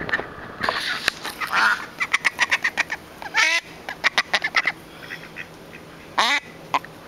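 Ducks quacking: a fast run of short quacks, about five a second, with two longer calls that fall in pitch, one in the middle and one near the end.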